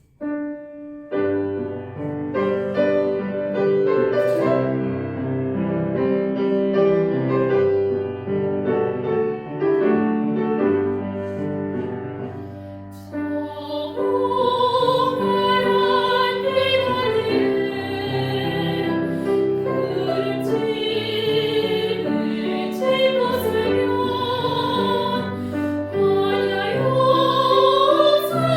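Piano introduction to a Korean Buddhist hymn (chanbulga). About 13 seconds in, a classically trained voice comes in singing with vibrato over the piano.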